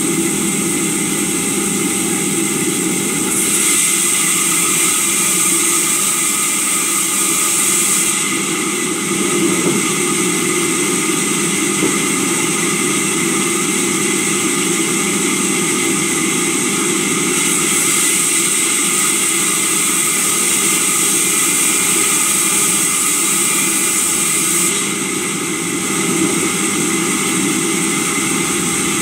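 Sawmill saw running steadily with a constant hum, cutting into a log twice: about three seconds in for some four seconds, and again from about 17 seconds for some seven seconds, each cut adding a loud hiss over the machine's running.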